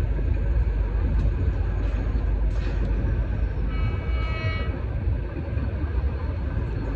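Steady low rumble of a moving vehicle, with a short pitched tone lasting about a second around the middle.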